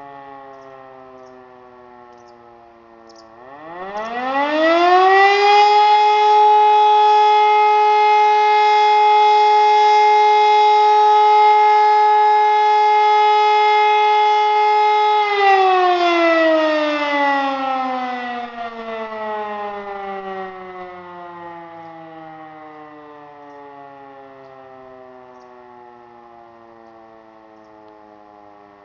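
E57 electromechanical siren sounding one blast of the fire-alarm test signal. At the start its rotor is still winding down from a previous blast. About three seconds in, it spins up with a rising wail to a loud steady tone that holds for about ten seconds, then cuts out and winds down in a long falling tone that fades away.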